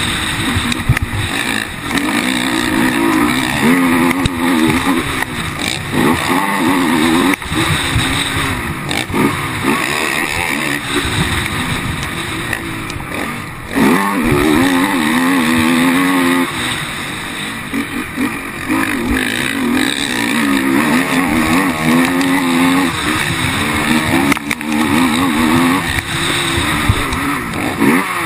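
Racing quad engines at full race pace on a dirt track, heard on board. The engine note keeps rising and falling as the quad accelerates and backs off through corners and straights, with short knocks from the ruts.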